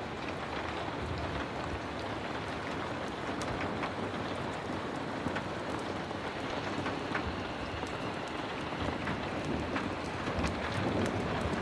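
Heavy rain falling steadily: a dense, even hiss with scattered faint sharp clicks, growing slightly louder near the end.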